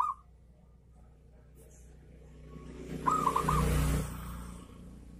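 Zebra dove (perkutut) cooing: a quick run of about four short rising-and-falling notes right at the start and again about three seconds in. A rushing noise with a low rumble swells and fades around the middle, loudest between about three and four seconds in.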